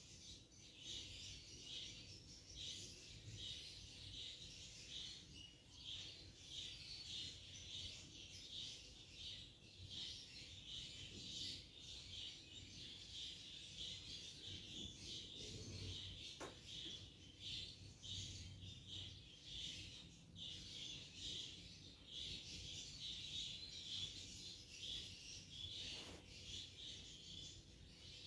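Faint, steady high-pitched chirping that pulses a couple of times a second without a break, with a low hum beneath it.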